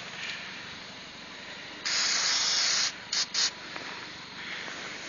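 Aerosol can of white grease spraying onto a car latch: one long burst of about a second, then two short quick bursts.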